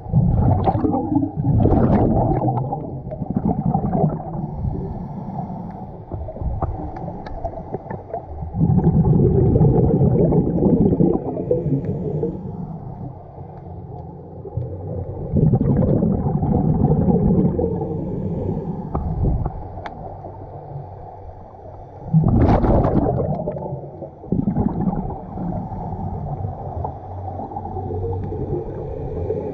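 Scuba diver breathing through a regulator underwater, heard as muffled gurgling exhaust bubbles that swell in bursts every six to seven seconds with each breath.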